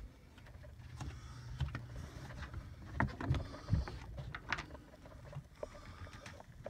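Irregular knocks, clicks and rubbing as a phone camera is carried and brushed against surfaces through a boat's cabin, a cluster of sharper knocks about halfway through, over a steady low hum.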